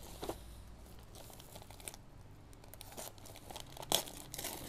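Paper and plastic packaging crinkling and tearing as a small knife cuts open a wrapped kitchen knife, with scattered light rustles and a sharper crackle about four seconds in.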